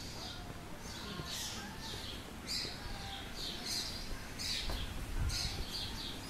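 Small birds chirping over and over, short high chirps in quick succession.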